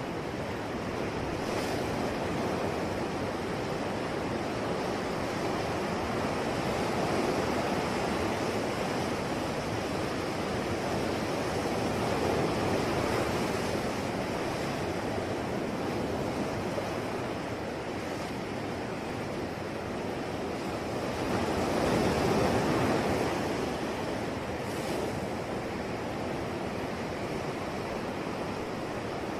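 Sea waves washing onto a shore in a steady wash, swelling louder every several seconds as waves break, loudest a little past two-thirds of the way through.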